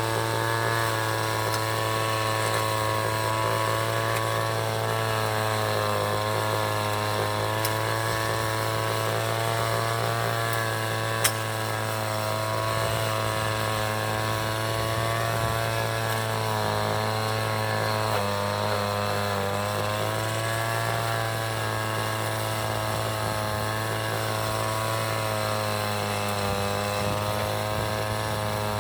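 City traffic ambience carried by a steady engine drone, its pitch wavering slowly up and down over a low hum. A single sharp click sounds about eleven seconds in.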